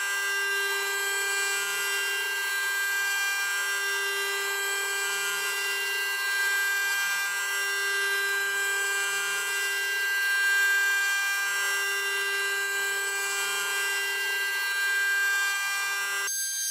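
800 W CNC router spindle spinning a carbide end mill through aluminium plate: a steady high whine of several fixed pitches over a cutting hiss, slowly swelling and easing as the cut goes on. Near the end the fuller sound cuts off abruptly, leaving only a thin high whine.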